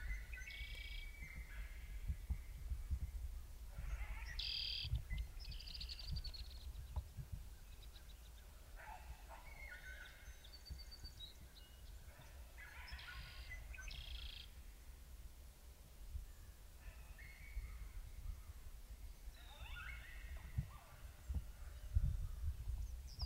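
High-pitched animal calls come in short clusters every few seconds, over a low rumble of wind.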